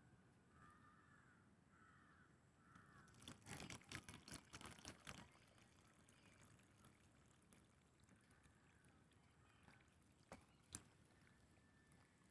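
Faint crow cawing: a quick run of three or four calls in the first few seconds and another call or two later on. About three to five seconds in comes a brief cluster of clicks and rustles, the loudest sound here.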